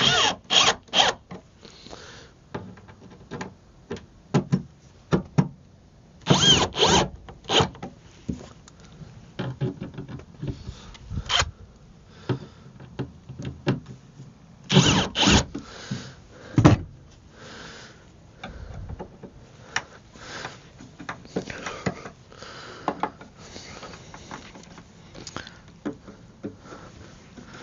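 Hands-on work with wooden boards and tools: irregular knocks, clunks and clatter with rustling between them. Sharper clusters of knocks come near the start, about six seconds in and about fifteen seconds in.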